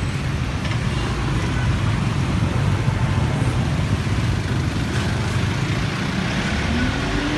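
Steady street traffic noise dominated by low engine rumble, with motorbikes running close by.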